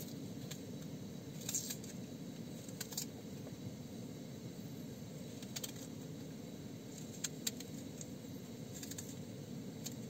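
Small knife cutting vegetables held in the hand: a few crisp, irregular clicks as the blade snicks through, over a steady low hum.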